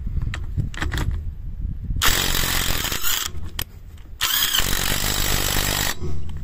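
Yato YT-82805 cordless impact wrench hammering on a lug nut of a rusty steel wheel, in two bursts of about a second and a half each with a short pause between.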